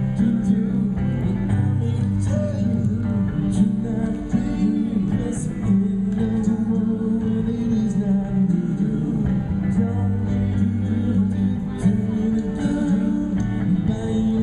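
A live band playing amplified music: guitar with singing.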